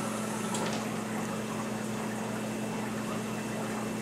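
Liquid poured in a thin stream over ice into a plastic cup, a steady soft trickle, over a constant low hum.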